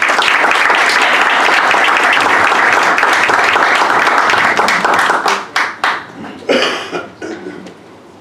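Audience applauding: dense, steady applause for about five seconds, then thinning into scattered claps that die away.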